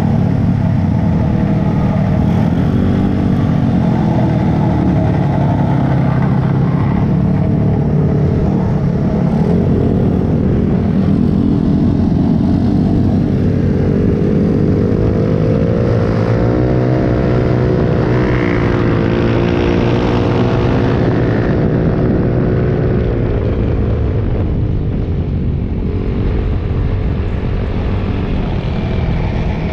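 A pack of small-displacement mini motorcycles and scooters riding together. Several engines run at once, their pitch rising and falling as riders rev and shift.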